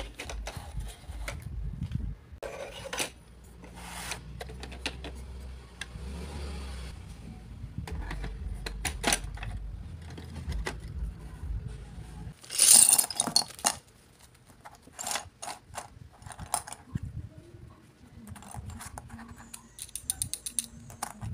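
Hard plastic toy parts of a Goliath Greedy Granny game being handled, fitted and set down: scattered clicks, knocks and clatter, with a louder noisy burst about twelve seconds in and a quick run of clicks near the end.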